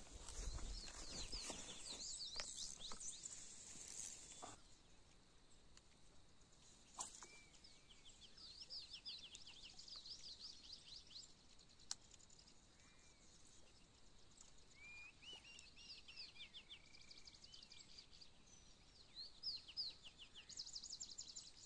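Wild birds calling faintly: repeated quick runs of high chirps and trills, with a few short rising-and-falling whistles. A few knocks and some rustling of handling in the first four seconds or so.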